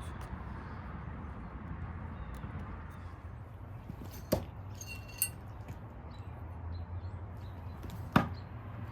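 Two sharp thunks of Willow Leaf throwing knives striking a target, about four seconds apart, with a short metallic clink and ring just after the first.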